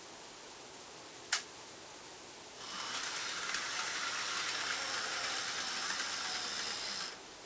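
A single sharp click, then an N gauge model train running on the track: a steady small-motor whirr with wheel noise and a faint high whine, starting about two and a half seconds in and cutting off suddenly near the end.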